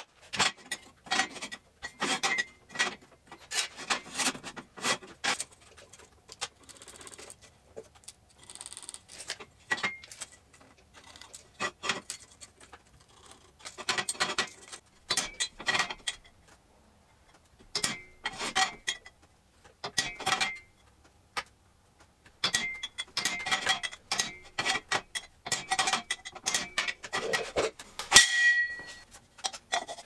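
Steel square tubing knocked with a hammer and handled on a steel welding table: a string of short metallic clanks and taps, with quiet gaps between them, some ringing briefly. The loudest clank comes near the end.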